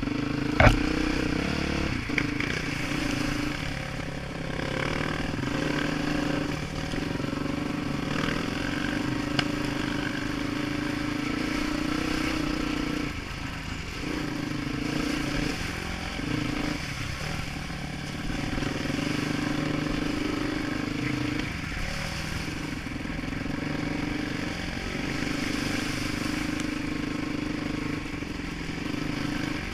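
Dirt bike engine running steadily under throttle along a trail, heard from the rider's helmet, with brief drops in engine note where the throttle eases off about halfway through. A sharp knock stands out under a second in.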